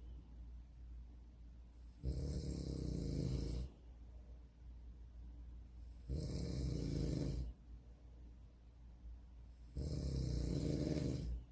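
A man snoring in his sleep: three long snores, about four seconds apart.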